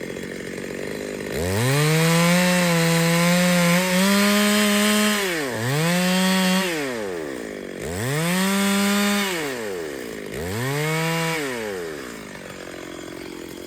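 Two-stroke chainsaw engine revved to full throttle four times, the first rev the longest at about four seconds. Each time the pitch rises sharply, holds, then falls back to idle.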